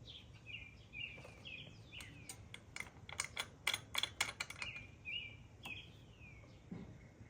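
A small bird chirping again and again, with a quick run of sharp, irregular clicks from hand tools about two to five seconds in.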